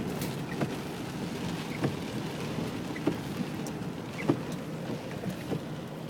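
Rain falling on a vehicle, with scattered single drops tapping sharply on the body or glass over a steady low rumble.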